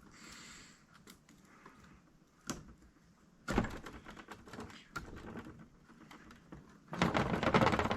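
Small metal parts of a VW rocker arm assembly clicking and rattling as it is handled and its retaining clip worked into place. There is a sharp single click about two and a half seconds in, a louder bout of clicking about a second later, and a dense run of clattering near the end.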